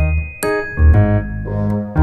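Background music: a keyboard melody of pitched notes over sustained bass notes, a new note about every half second.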